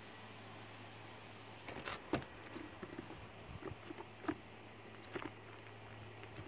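Red squirrel scrambling on a weathered wooden railing and taking a peanut in the shell: a scatter of light claw taps and clicks starting about two seconds in.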